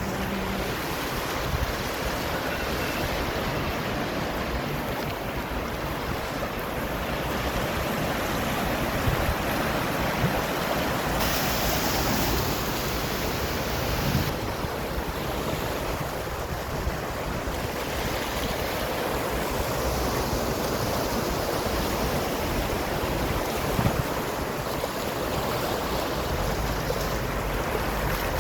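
Floodwater rushing by, a steady loud noise of flowing water.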